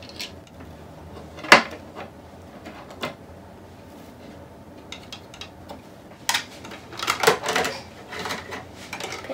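Plastic toy dolls and a plastic toy van being handled on a tabletop: scattered clicks and knocks, the sharpest about a second and a half in, and a busier clatter from about six to eight seconds.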